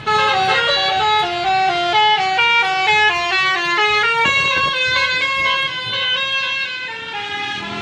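Musical multi-tone bus horn of the Indonesian 'telolet' kind playing a quick melody of short, steady notes stepping up and down in pitch.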